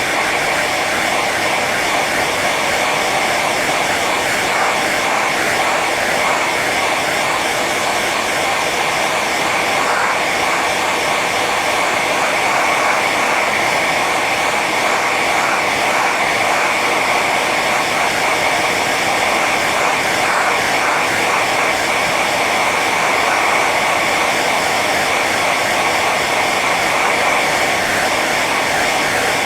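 Hair dryer running on its high setting: a steady, even rush of blown air and motor whine that holds without a break.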